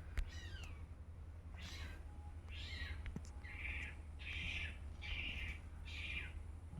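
A spoon or ladle scooping rice in a pot: about six short scraping strokes in a steady rhythm, roughly one every three-quarters of a second.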